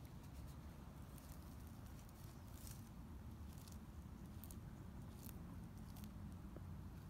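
Faint, irregular crackles of dry grass and leaf litter under a sulcata tortoise's feet as it plods forward, over a low steady rumble.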